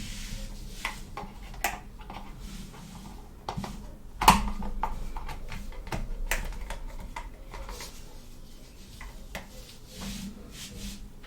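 Small plastic toy playset pieces being handled, clicking and tapping against each other and a hard surface in an irregular string of light clicks, with one louder knock about four seconds in.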